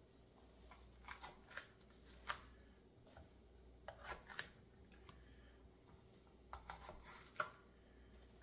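Kitchen knife slicing peppers into rings on a cutting board: irregular clusters of sharp taps, the loudest about two seconds in and again near the end.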